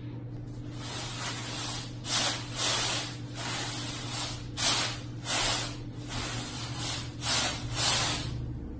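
Dry roasted oolong tea leaves hiss and rustle as they pour out of a large woven bamboo roasting basket onto a round tray. They come in a series of shakes, each surge lasting about half a second, from about two seconds in.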